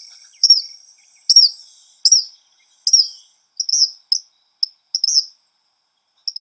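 Eastern kingbird calling: a series of high, sharp notes that each dip in pitch, coming about one a second. About halfway through they give way to a quicker run of shorter notes that thins out near the end.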